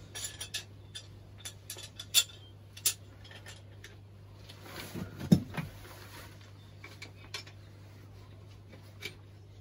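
Scattered metallic clinks and knocks of small plumbing parts and tools being handled during compression-fitting work, loudest about two seconds in and again just after five seconds, over a faint steady low hum.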